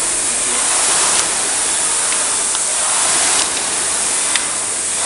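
Concept2 rowing machine's air-resistance fan flywheel whooshing under hard rowing, swelling with each drive stroke about every two seconds. A few faint ticks sound over it.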